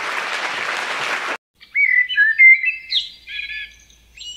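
Audience applause that cuts off abruptly about a second and a half in, followed by a songbird singing short phrases of clear, varied whistled notes.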